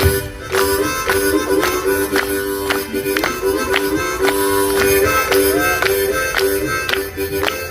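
Acoustic guitar strummed in a steady rhythm, with a harmonica playing a sustained melody over it: the instrumental intro of a folk ballad before the singing starts.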